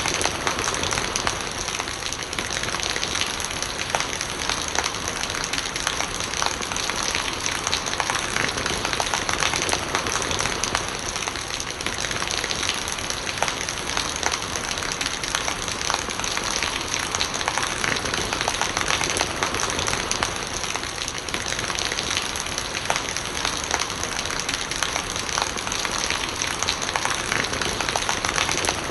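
Steady rain falling, with close drops pattering and ticking on surfaces and rainwater gurgling as it runs.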